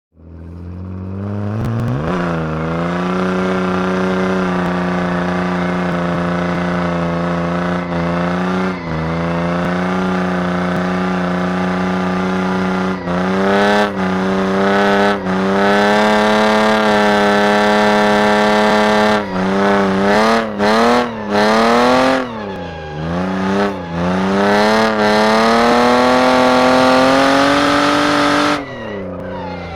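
Car engine during a drift, fading in from silence and then held at high revs with a few brief dips. In the second half the revs drop and climb again several times in quick succession as the throttle is lifted and reapplied.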